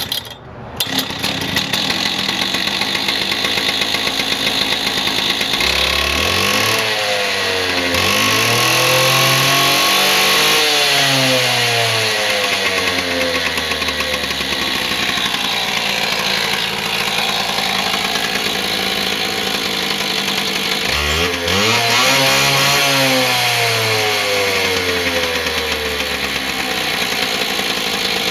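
Hilti DSH 700 two-stroke petrol cut-off saw running. It is revved up and let back down twice, about six seconds in and again about twenty-one seconds in.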